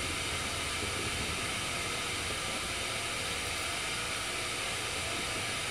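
Pocket gas stove screwed onto a fuel canister, its burner running at a steady, even hiss under a pot of water being brought to the boil.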